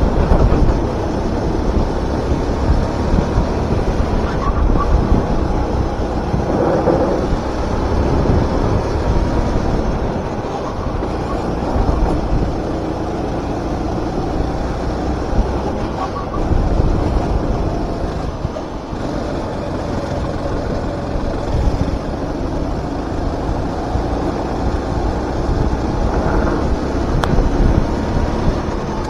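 Four-stroke rental kart engine running at racing speed, heard on board, with wind buffeting the microphone.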